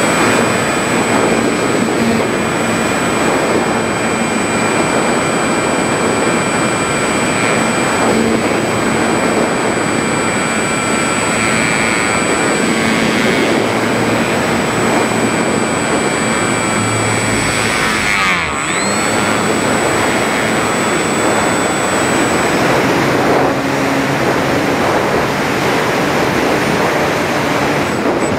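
Electric motor and propeller of a Volantex Phoenix 1600 motor glider running under power, a steady whine with high tones over a rush of air. About two-thirds through, the whine drops in pitch briefly and climbs back.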